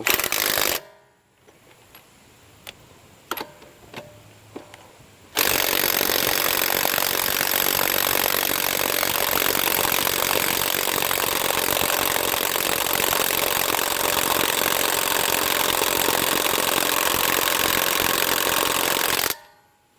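A few light clicks, then about five seconds in a HANS 1/2" cordless electric impact wrench starts hammering on a wheel lug nut and runs steadily for about fourteen seconds before cutting off.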